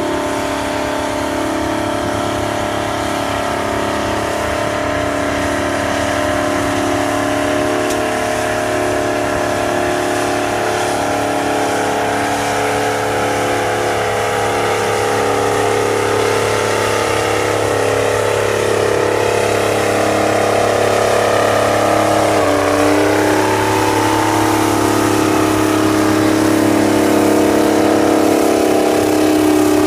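Diesel engine of a huge articulated four-wheel-drive tractor running hard while it pulls a heavy load, growing gradually louder as it draws closer. About three-quarters of the way through, its pitch sags briefly and then recovers.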